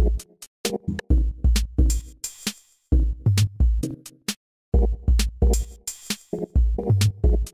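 Electronic music from a demoscene intro soundtrack: drum-machine kick drums and hi-hats under short synth chord stabs. The pattern stops dead for brief silences about every two seconds.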